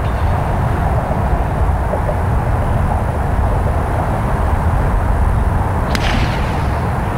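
Golf iron striking the ball on a full approach shot: one sharp crisp click about six seconds in, over a steady low rumble of wind on the microphone.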